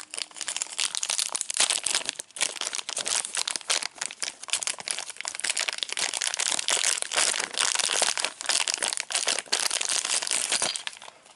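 Clear plastic packaging bag crinkling and crackling steadily as hands unwrap it, stopping just before the end.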